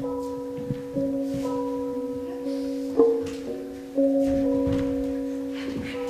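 Slow instrumental music of ringing struck notes, each one starting sharply and fading slowly, with a new note about every second or two.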